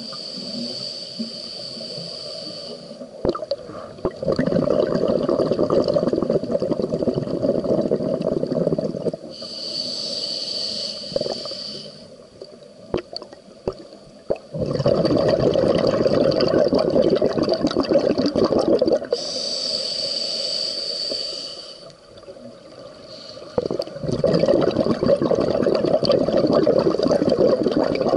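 Scuba diver breathing through a regulator underwater. Three slow breath cycles: each is a hissing inhalation of about two seconds through the demand valve, followed by a longer bubbling rush of exhaled air.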